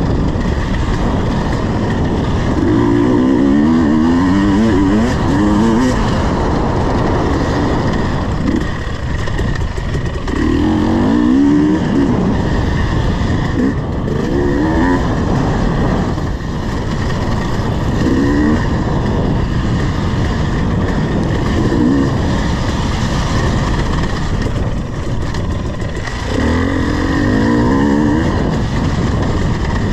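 KTM 250 EXC two-stroke dirt bike engine under way, revving up in repeated surges of rising pitch every few seconds, over constant rough mechanical noise.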